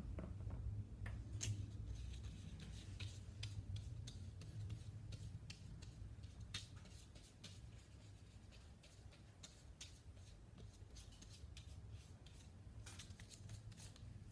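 Paintbrush working on paper: faint, irregular short scratches and taps, over a steady low rumble.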